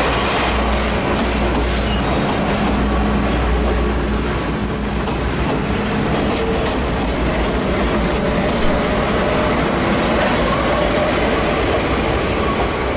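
Train running along the track with a steady rumble and clatter of wheels on rails. There is a short high wheel squeal about half a second in and a longer one around four seconds in.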